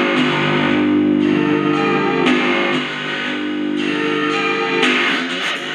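Guitar music playing through small plastic test speakers driven by a Pioneer SX-950 stereo receiver, showing that the repaired receiver now passes audio. Strummed chords change every second or so.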